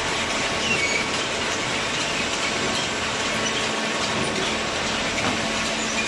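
Horizontal hydraulic cardboard baler running: a steady mechanical din with scattered brief metallic squeaks and clatter.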